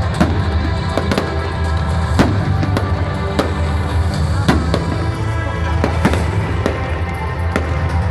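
Fireworks bursting in quick, irregular bangs, several a second at times, over music that plays throughout.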